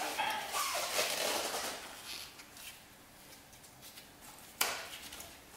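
Rubber toothed timing belt being worked off a cam sprocket by a gloved hand: rustling and scraping for the first couple of seconds, then quieter handling, with a single sharp click a little over four and a half seconds in.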